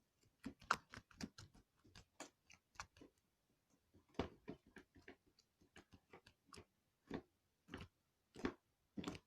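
Soft homemade white PVA-glue slime being squished and stretched in the hands, giving faint, irregular little squelching clicks, two or three a second.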